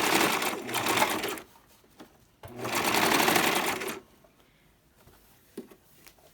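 Electric sewing machine stitching hair wefts onto a wig cap in two short runs of about a second and a half each, stopping briefly between them and falling quiet about four seconds in.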